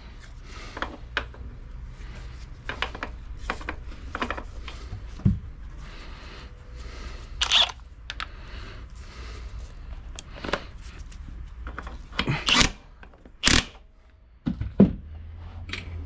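Hand tools at work on a motorcycle's rear axle nut: scattered metal clicks, clinks and scrapes of sockets and wrenches, with a few louder sudden knocks in the second half, over a steady low hum.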